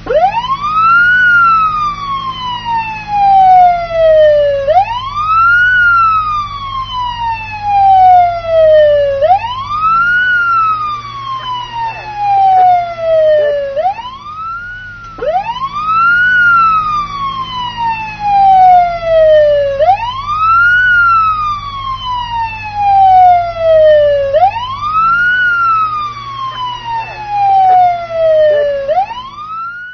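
Police siren wailing. Each cycle climbs quickly in pitch, then glides slowly back down, repeating about every four and a half seconds. A low steady hum runs underneath.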